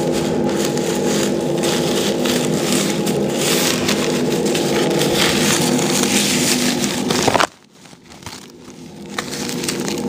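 Toto toilet flushing a paper towel: a loud rush of water with a steady hum under it. About seven and a half seconds in, a brief rising whistle comes, then the flow cuts off sharply.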